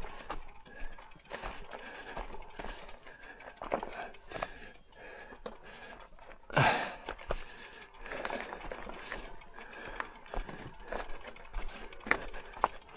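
Electric mountain bike clattering over rocky ground: irregular rattles and knocks from the bike and tyres on stones, with one heavy jolt about seven seconds in.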